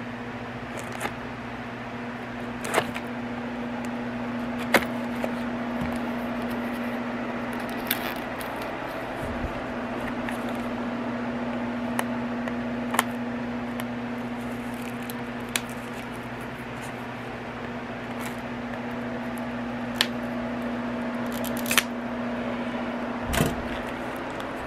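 Cardboard gift box being worked open by hand, with scattered sharp clicks and light scrapes every second or two as the lid is prized loose without tearing. A steady low electrical hum sits underneath.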